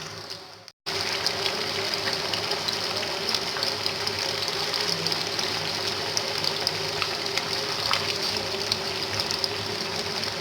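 Fish fingers deep-frying in hot oil: a steady sizzle with many small crackles. It cuts out briefly under a second in, then carries on evenly.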